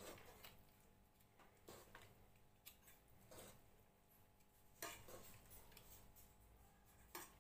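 Faint, scattered clicks and scrapes of a cooking spoon against the pot as the freshly steamed biryani rice is turned over and mixed top to bottom. The sounds come irregularly, about seven in all, over a low steady hum.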